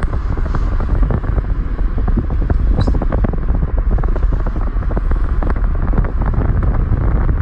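Wind buffeting the phone's microphone at the car's side, over the low rumble of the car driving along a paved road: a steady, rough noise.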